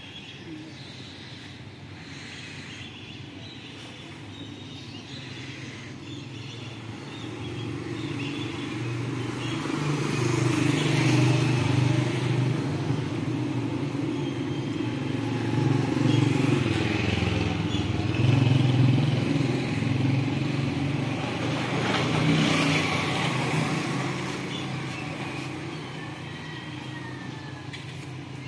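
Motor vehicles passing on a road: engine and tyre noise that swells and fades several times, loudest through the middle.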